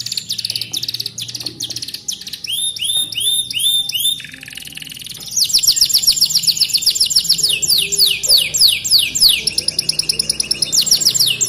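Domestic canary singing a fast, varied song of rapidly repeated sweeping notes. It starts with a run of arched notes, has a brief softer, buzzier phrase about four seconds in, and from about five seconds a quick trill of steeply falling notes. The song carries phrases copied from the ciblek gunung (a prinia) it was tutored with.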